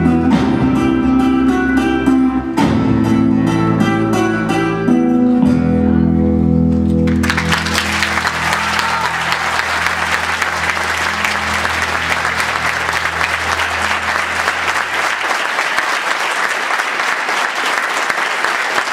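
Flamenco guitar music with rapid rhythmic strumming, breaking off about seven seconds in into audience applause. A low held chord rings on under the applause for several seconds before fading.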